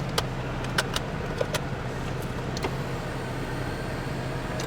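Infiniti G35 coupe's engine idling steadily, heard inside the cabin, with a few sharp light clicks in the first few seconds as the manual shifter with its new knob is worked.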